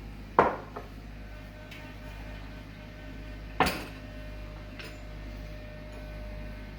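Kitchen utensils and containers knocking against dishes while spices are measured into a mixing bowl: two sharp clinks about three seconds apart, the first followed by a smaller one.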